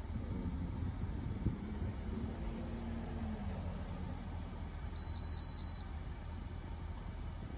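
An Innova 3120 OBD2 scan tool gives a single high beep lasting under a second as it links to the car. Under it is a steady low rumble in the car.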